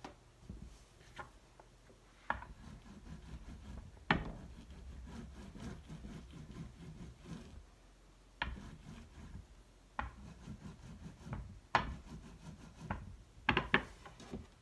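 Rolling pin rolling over a plastic lace placemat pressed onto a soft clay slab, a low rumbling rub, broken every second or two by sharp clicks and knocks as the pin and mat are handled, with a quick cluster of clicks near the end.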